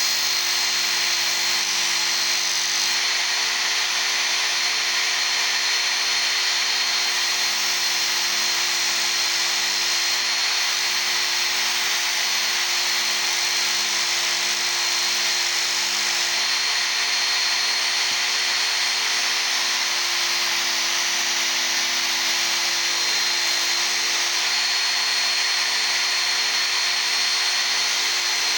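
Work Sharp Ken Onion Edition belt sharpener running steadily, with a chisel's steel being ground against its abrasive belt: a continuous hiss over a steady motor hum, its tone shifting slightly a couple of times.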